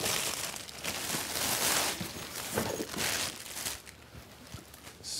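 Rustling and scraping from a carrying case and its packaging being handled, in several uneven bursts that die down about four seconds in.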